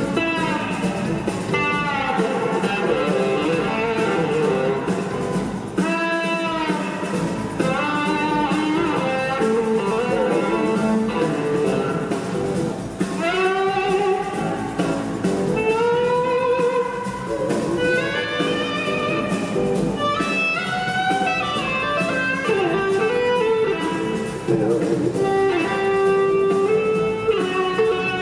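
Live blues-rock band playing an instrumental jam, led by electric guitar with many gliding, bending notes over the band.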